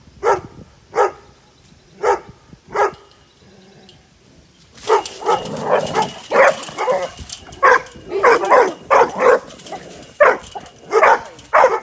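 Dogs barking at an armadillo through a fence: single barks a little under a second apart, a short lull, then a faster run of overlapping barks from about five seconds in.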